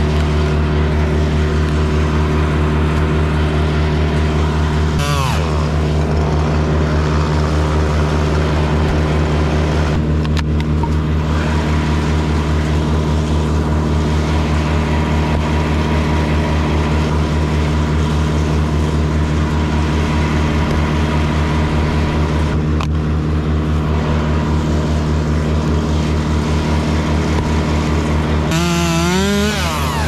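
Small petrol engine running steadily at constant speed, with a short rising rev about five seconds in and another near the end.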